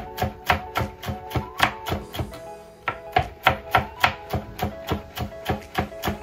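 Chef's knife chopping green bell pepper on a plastic cutting board, quick regular knocks about three a second with a short pause a little after two seconds in. Background music plays underneath.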